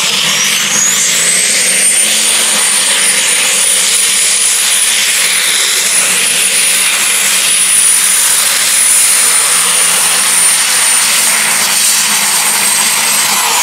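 Modified pulling tractor's engine running at full power under load on the pull, a loud dense roar with a high whine that climbs over the first two seconds and then holds steady until near the end.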